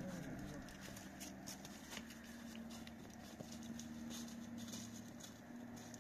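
Slow, uneven footsteps of several people crunching and scuffing over rock and dry leaves on a steep slope, as two men help an injured man with a broken leg walk down. A steady low hum sounds under the steps.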